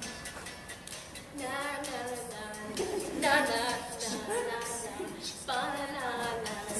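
A woman singing in three phrases with long, gliding notes, starting about a second and a half in.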